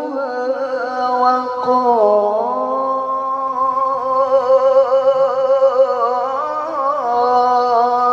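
A man's Qur'an recitation (tilawah) sung into a microphone: one long drawn-out melodic passage of held notes with fine wavering ornaments, dipping lower about two seconds in and rising again near the end. The reciter warned that his voice is unwell and hoarse and is being pushed.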